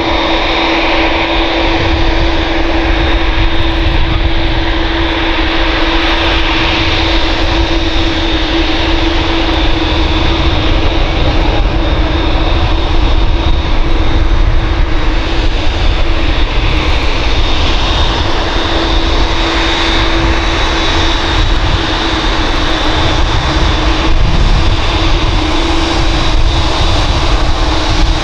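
Boeing 787-9's GEnx-1B turbofan engines at taxi power: a steady engine whine, with one mid-pitched and one high-pitched tone held over a low rumble, as the airliner taxis past.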